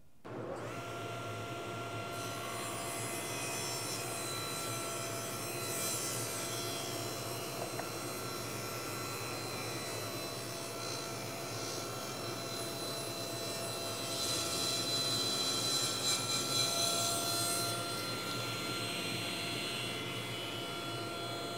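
Cabinet table saw switching on and running with a steady whine while a board is ripped lengthwise through the blade. The cutting noise grows louder for a few seconds past the middle.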